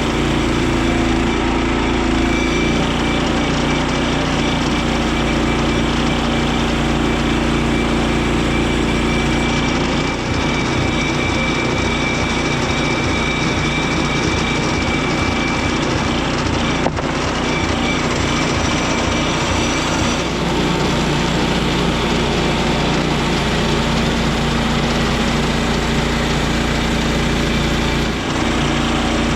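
Engine of a Frontier OS23 portable bandsaw sawmill running steadily as the blade saws lumber from an ash log, with a single sharp click about two-thirds of the way through.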